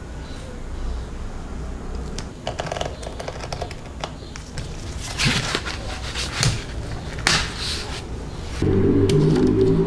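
Handling sounds of a thin fabric sheet being smoothed, cut with a craft knife and lifted: soft rustling and light clicks, thickening into louder rustles partway through. Near the end a louder low drone made of several steady tones starts up.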